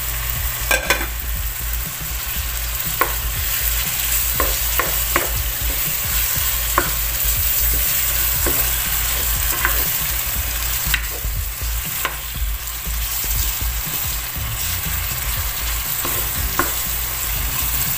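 Beef chunks and diced tomato sizzling in a non-stick frying pan while a plastic spatula stirs them, with scattered sharp clicks and scrapes of the spatula against the pan.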